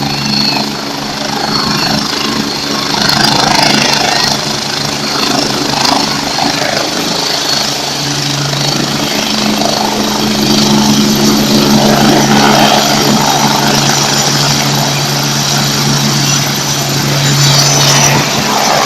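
Helicopter running loud and steady: the engine hum holds a few low tones under the rapid beat of the rotor.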